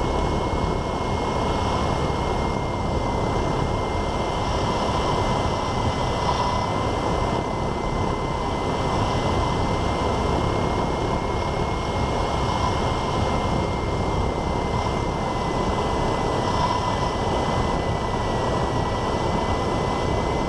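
Cessna 172N's four-cylinder Lycoming engine and propeller droning steadily in the cockpit, with a thin, steady high tone over the drone.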